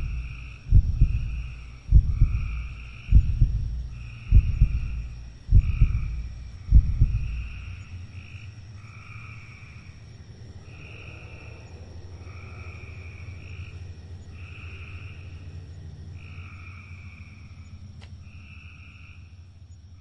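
Horror-film sound design: deep doubled thumps in a heartbeat rhythm, about one every 1.2 seconds, stop about seven seconds in and give way to a low steady drone. Throughout, a croaking call repeats about once a second over a thin, steady high whine.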